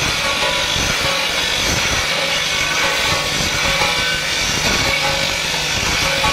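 Brake shoe grinding machine running: motorcycle brake shoes held on a rotating fixture plate are ground against an abrasive wheel, a steady grinding rush over a low electric-motor hum.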